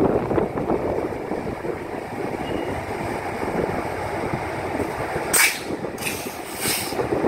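WDM3D diesel locomotive with its 16-cylinder ALCO-design engine hauling a goods train toward and past, the engine and wagon wheels making a steady rumble. About five seconds in, two short sharp hisses of air are let out from the locomotive.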